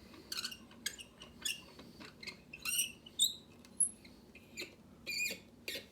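A padlock being set into a small vise and clamped: scattered metal clicks and taps with a few short squeaks as the vise is tightened.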